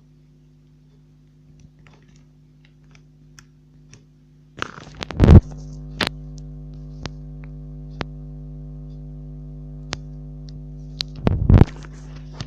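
Steady electrical hum that switches on about four and a half seconds in, with scattered sharp clicks and two loud knocks, one soon after the hum starts and another near the end.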